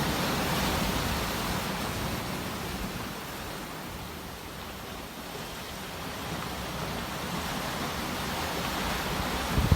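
Sea waves breaking and washing ashore as a steady rush that eases off in the middle and builds again near the end.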